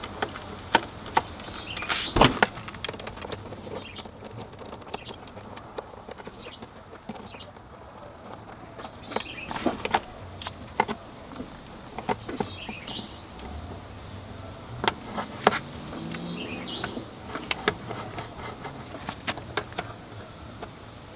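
Scattered clicks and knocks of hands and tools on metal and plastic parts as a scooter carburetor is pushed into its intake manifold and the manifold bolts are started, a few of them sharper and louder than the rest.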